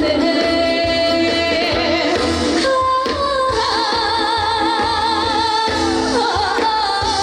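Female trot singer singing live over instrumental accompaniment, holding long notes with a wavy vibrato.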